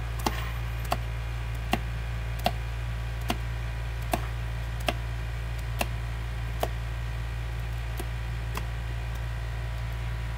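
A steady low hum with a run of sharp ticks, one about every three-quarters of a second, the gaps widening slightly and the ticks growing fainter about two-thirds of the way in.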